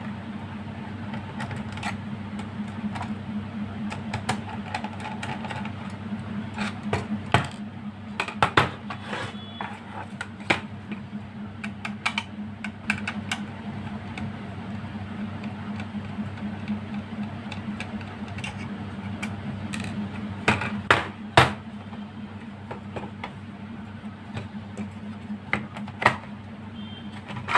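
Irregular sharp clicks, taps and small metallic knocks of screws being driven out of a metal switch-mode power supply case and the case being handled and opened, a few louder knocks among them. A steady low hum runs underneath.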